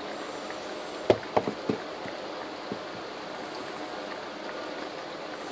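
Water spray hitting the outside of a window during a leak test, a steady hiss at a rate meant to match heavy rain. A quick cluster of sharp clicks about a second in, the loudest sounds here, and one fainter click a little later.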